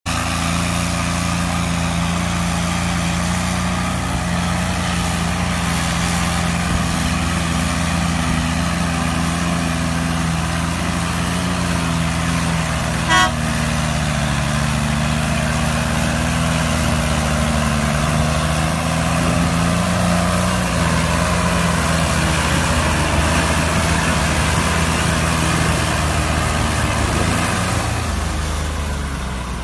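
Diesel engines of two tractors, a Farmtrac 60 and a Swaraj 855, running steadily under the load of a fully loaded sugarcane trolley. There is a short sharp sound about thirteen seconds in, and the engine sound fades near the end.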